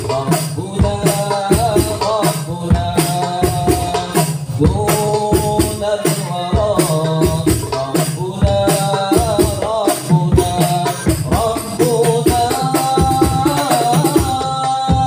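Hadrah ensemble performing sholawat: male voices sing a melody over rebana frame drums beating a fast, busy rhythm.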